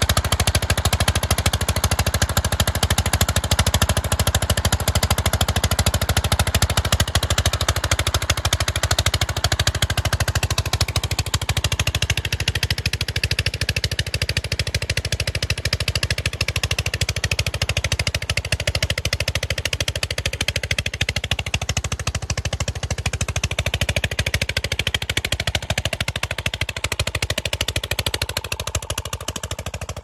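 Single-cylinder stationary diesel engine with a large flywheel running steadily under load, chugging with a fast, even beat as it drives an irrigation water pump. It grows a little quieter near the end.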